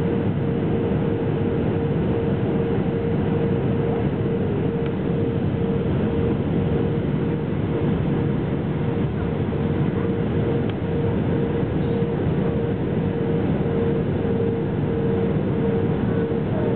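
Steady cabin noise inside an Airbus A319-132 on approach with flaps extended: the rumble of its IAE V2500 turbofan engines and rushing airflow, with a steady mid-pitched hum running through it.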